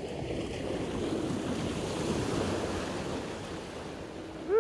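Small waves washing in over a shallow sandy river flat, a surge of foamy water that swells and then eases off. A brief high pitched chirp just at the end is the loudest moment.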